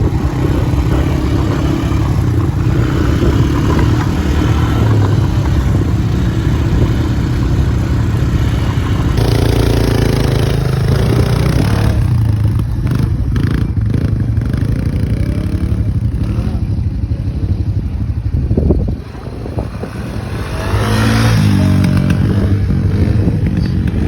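ATV engines running with a heavy, steady rumble, revving up twice, about ten seconds in and again near the end, with a brief drop in level near nineteen seconds.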